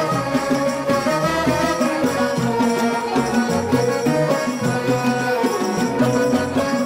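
Instrumental music in a traditional folk style, several pitched instruments and a bass line playing on without a break.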